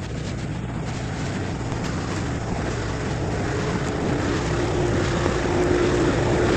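A large vehicle's engine running with a steady drone, growing gradually louder.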